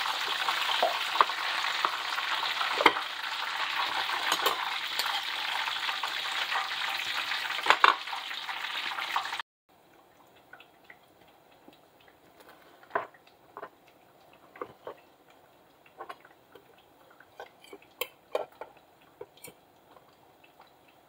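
Hot oil sizzling steadily in a frying pan, with a few sharp taps. The sizzle cuts off abruptly about nine seconds in, leaving only faint taps and clinks of ceramic plates and a knife as fried plantain pieces are pressed flat between two plates.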